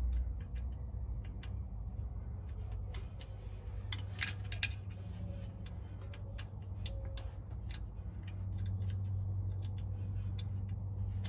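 Scattered light metallic clicks and ticks of a Torx driver and bit working at the ABS module's mounting screws, with one sharper tick about halfway through. A steady low hum runs underneath.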